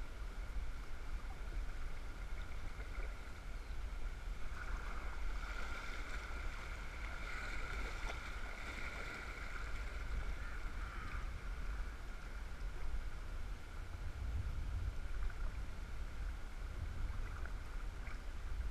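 River rapids rushing around a kayak, heard as a steady wash of water noise over a constant low rumble. The rush grows louder and brighter from about a quarter of the way in until just past halfway, then settles back.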